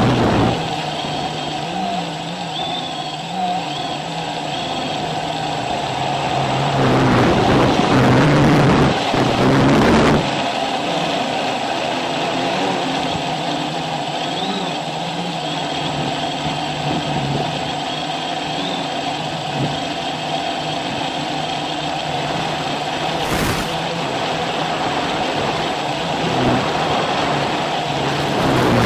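Quadcopter's electric motors and propellers humming steadily, the pitch wavering up and down as the throttle is adjusted, with a stretch of louder rushing noise about a quarter of the way in.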